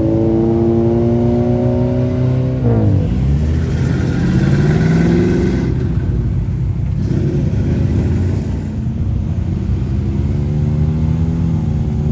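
Performance car engine accelerating away hard, its pitch climbing, dropping sharply at a gear change about three seconds in, climbing again and cutting off near six seconds; another engine's note rises in the second half.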